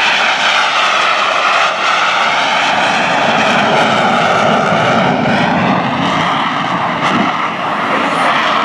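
Aermacchi MB-339PAN jet trainer flying close by, its Rolls-Royce Viper turbojet running loud and steady, with a whine that wavers up and down in pitch.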